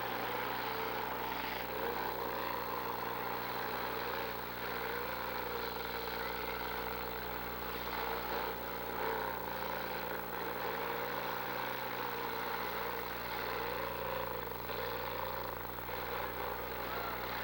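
Demolition derby cars' engines running and revving, their pitch rising and falling again and again over a steady low hum.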